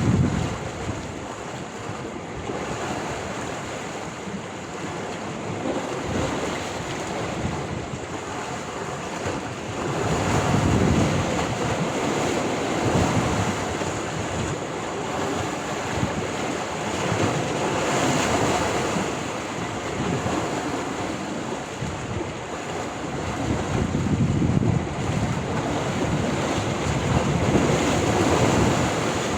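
Sea waves breaking and washing onto the shore in a steady rush that swells every few seconds as each wave comes in, with wind gusting on the microphone.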